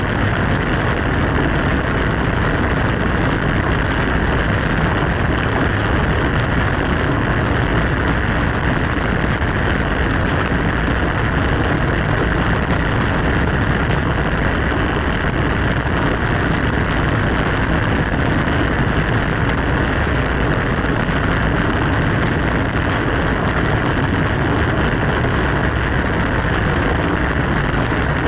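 Steady wind rush and road noise on a camera riding along on a racing bicycle at speed, an even roar with no breaks.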